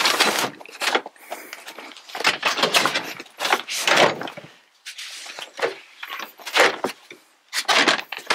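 A 2022 Chrysler Pacifica's Stow 'n Go second-row seat being folded into its floor bin: the plastic bin lid handled and the seat latched down, a series of irregular clunks, knocks and rustles of plastic and upholstery.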